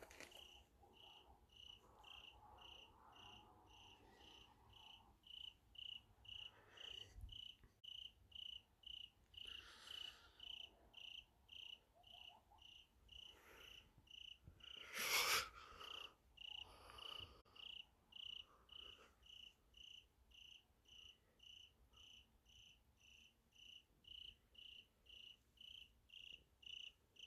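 A cricket chirping steadily at night, short high chirps about two a second. A brief burst of noise about halfway through is the loudest sound.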